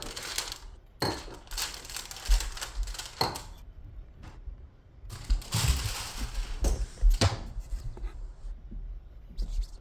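Handling noise: irregular clicks, light knocks and short rustles as the phone is handled.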